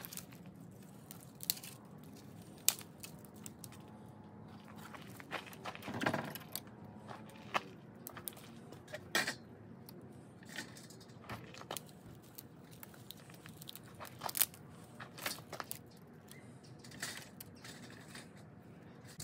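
Dry shortleaf pine twigs snapped by hand and pushed into a perforated metal hobo stove: scattered sharp snaps and crackles at irregular intervals.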